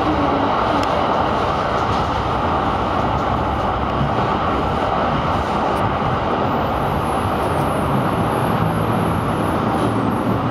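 TW6000 tram heard from inside as it runs along the track: steady rumble of wheels on rail with a low motor hum. A faint high-pitched whine joins about two thirds of the way through.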